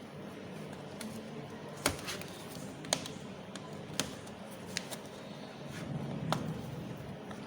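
Sealed packaging of a server memory module being handled and worked open, giving about five sharp clicks and taps over a low steady background. The seal is tightly packed and hard to get open.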